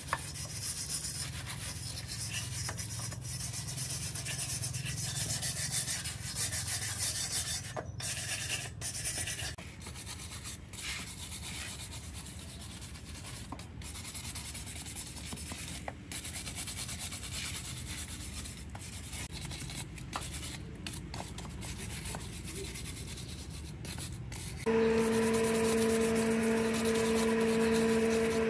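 Sanding by hand, a steady scraping hiss that turns quieter and patchier after about ten seconds, broken by several short gaps. About 25 seconds in, a small electric motor starts and runs on with a steady hum, louder than the sanding.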